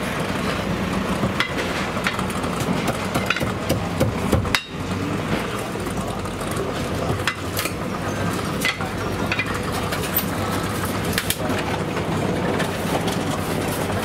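Chinese cleaver chopping roasted birds on a wooden chopping block, irregular sharp knocks about every second or so, over a steady din of kitchen noise and voices.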